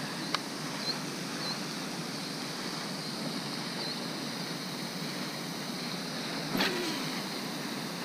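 Steady splashing hiss of a pond fountain's spray falling back onto the water, with a few faint high chirps in the first seconds and a brief thump about six and a half seconds in.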